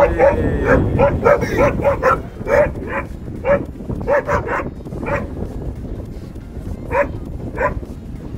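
A dog barking repeatedly in short, rapid barks, then two more spaced barks near the end.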